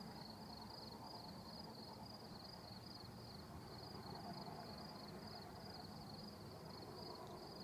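Faint night chorus of crickets chirping, a steady high pulsing trill that never lets up.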